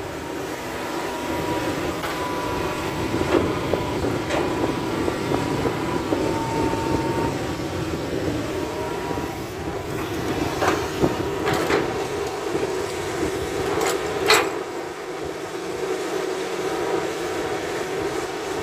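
Hitachi crawler excavator's diesel engine and hydraulics working steadily as it digs and swings a loaded bucket, with a thin steady whine over the engine. Several sharp metal clanks stand out, the loudest about fourteen seconds in.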